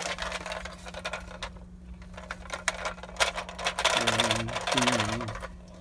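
Plastic-packaged action figures and a small plastic toy piece rattling, clicking and rustling as they are shifted about in a cardboard box, busiest and loudest from about three to five seconds in.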